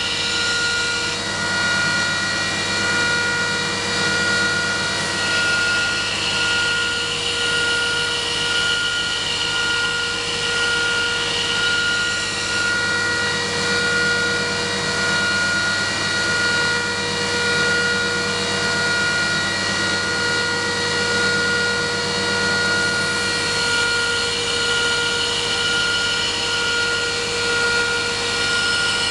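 Belt grinder with a 120 grit belt running steadily, a motor whine over a loud grinding hiss as a knife edge is ground to a 20-degree secondary bevel. The hiss swells and eases every couple of seconds, and its higher part comes and goes.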